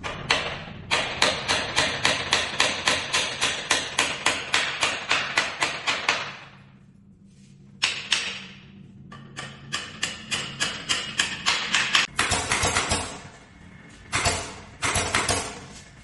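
Rapid, evenly spaced knocks, about four a second: a long run of some twenty strokes, a pause, then several shorter runs.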